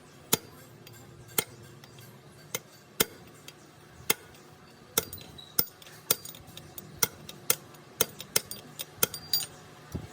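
Light metal-on-metal taps and clinks at an irregular pace, about twenty in all, a few ringing briefly, from tools and parts being handled.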